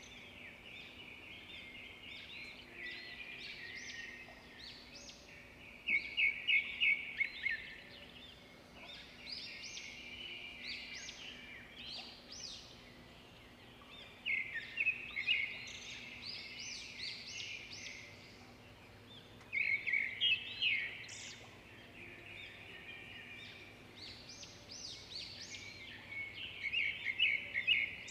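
Songbirds chirping and trilling in bursts of rapid notes every few seconds, over a faint steady hum.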